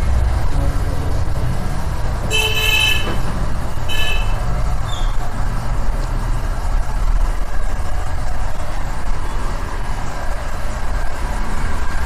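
Vehicle horn honking twice over a steady low traffic rumble: a longer toot a little over two seconds in and a short one about four seconds in.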